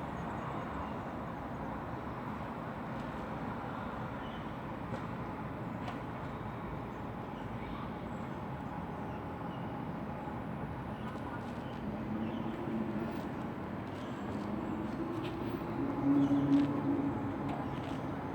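A steady low rumble, with a low droning, moaning tone that comes in about twelve seconds in and swells loudest around sixteen seconds.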